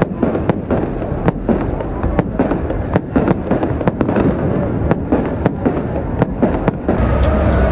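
Fireworks going off overhead in a rapid, irregular string of sharp bangs, several a second, over the noise of a large crowd. The bangs stop about seven seconds in.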